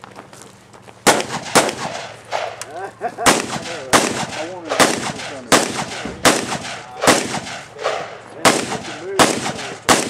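A steady string of about a dozen gunshots from a shooter working through a practical shooting stage. They start about a second in and come roughly one every three-quarters of a second.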